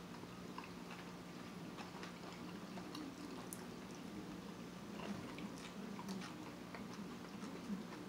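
Faint close-up chewing of a blackened salmon taco in a soft tortilla: soft, wet mouth sounds with scattered small clicks, over a low steady hum.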